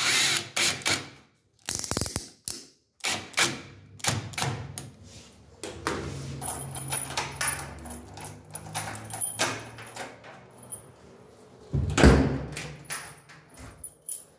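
A cordless drill-driver stops just after the start, having driven in a lock cylinder's retaining screw. Then come scattered clicks, knocks and rattles of door-lock hardware and keys being handled, with a louder thump near the end.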